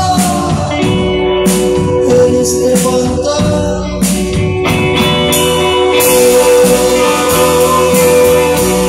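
A rock band playing a song live: guitars with drum hits and singing.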